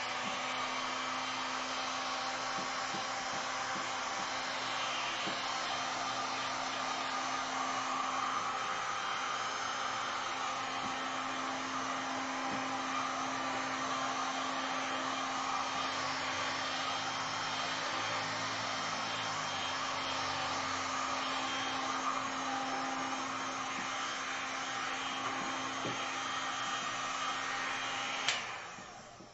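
Electric heat gun blowing hot air steadily over freshly poured epoxy resin, with a constant motor hum under the rush of air; it switches off abruptly about a second before the end.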